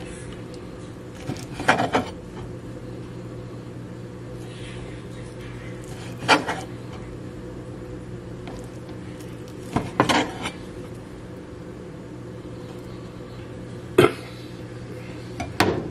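A kitchen knife knocking on a plastic cutting board while raw chicken breast is cut into pieces: about five separate sharp knocks a few seconds apart, some in quick pairs, over a steady low hum.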